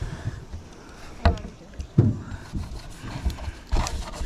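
Three dull knocks on an aluminium diamond-plate panel as it is gripped and handled by gloved hands, about a second apart, the middle one the loudest with a heavy thump.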